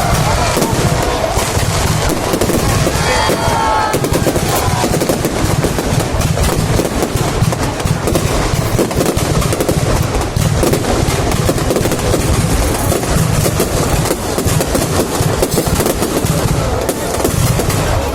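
Fireworks display going off in dense, rapid succession: a continuous crackle of many overlapping bangs with no let-up.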